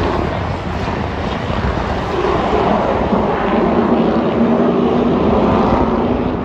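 Race trucks' engines running on the track, a steady drone that grows louder and rises a little in pitch from about two seconds in as the trucks come by.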